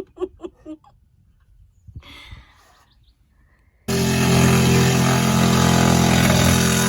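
A handheld power tool, likely a drill, starts suddenly about four seconds in and runs loudly at a steady speed for about three and a half seconds.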